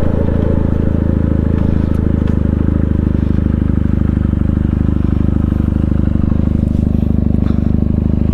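Benelli 300's parallel-twin engine idling steadily, a low, even exhaust note with no revving.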